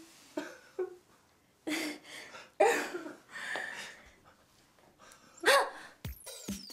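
Several short bursts of voice without words: stifled giggling and whimpering sobs. About six seconds in, a falling electronic tone sweeps down over a ticking beat as a music cue begins.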